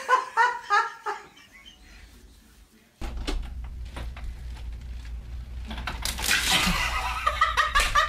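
People laughing in short choppy bursts. After a quieter stretch there is a low steady hum with a few clicks, and more laughing near the end.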